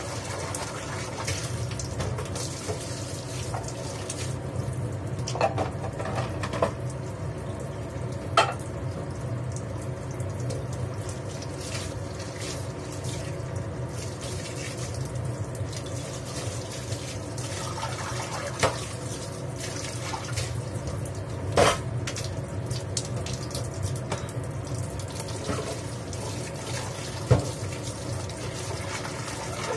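Kitchen tap running in a steady stream into a stainless-steel sink while hands wash things under it. A few sharp knocks sound now and then.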